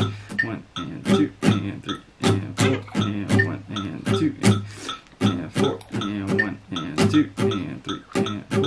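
Acoustic guitar strummed in a steady rhythm of eighth-note strokes, each chord ringing briefly before the next stroke.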